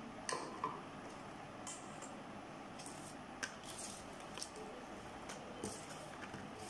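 Rolled-newspaper tube panels and cardboard template pieces being handled and laid on a table: a scatter of short paper rustles and light taps over a steady background hiss.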